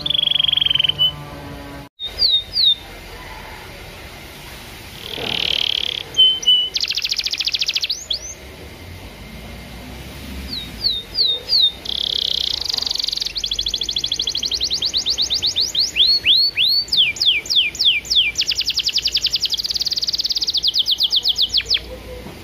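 Domestic canary singing: rapid runs of high trills and fast downward-sweeping whistled notes, in phrases with short pauses between them. A little instrumental music plays under the song at the very start and stops at a cut about two seconds in.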